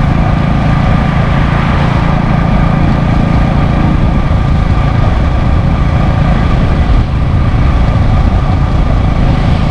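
A vehicle running steadily with road noise and a heavy low rumble, unbroken for the whole stretch.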